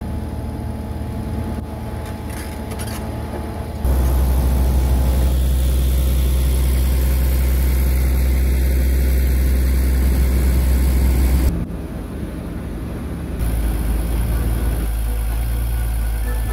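Heavy machinery engine running steadily at a construction site. The low rumble changes abruptly in level and tone about four seconds in, again near twelve seconds, and once more before fourteen seconds.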